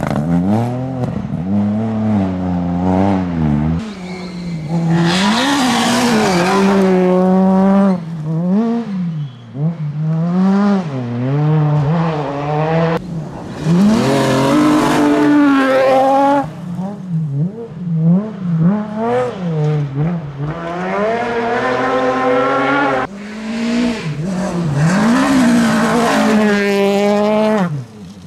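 Rally cars driving flat out on a gravel stage, one after another. Each engine revs hard, its pitch climbing and dropping through gear changes, and grows loud as the car goes by before fading away.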